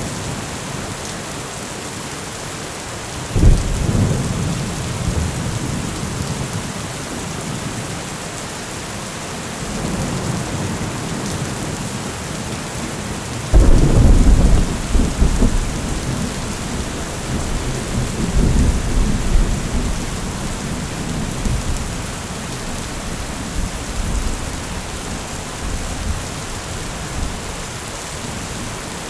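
Steady rain hissing throughout, with two rolls of thunder: a short clap a few seconds in, then a louder one a little before halfway that rumbles on for several seconds.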